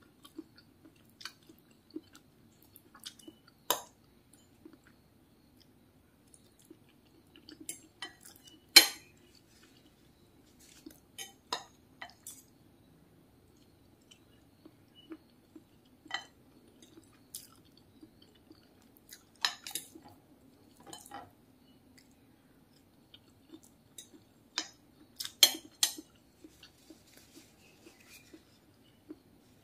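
Metal spoon and fork clinking and scraping on a ceramic plate during eating, with soft chewing between the clinks. The sharpest clink comes about nine seconds in, and more clinks cluster near twenty and twenty-six seconds. A faint steady low hum runs underneath.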